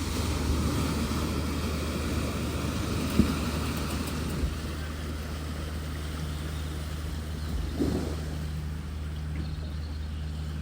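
A motor vehicle's engine running steadily as a low hum, with a single sharp knock about three seconds in.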